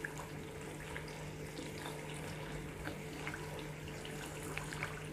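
Layered dough puri deep-frying in hot oil: a steady sizzle with scattered small pops and crackles, over a low steady hum.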